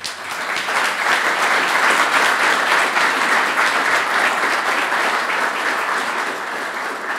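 Audience applauding: many people clapping together, starting suddenly and beginning to fade near the end.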